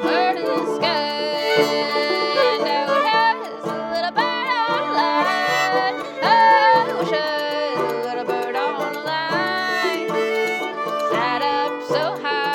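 Old-time string band playing: a fiddle carries the melody with sliding notes over a picked banjo and a steady rhythm from a set of spoons.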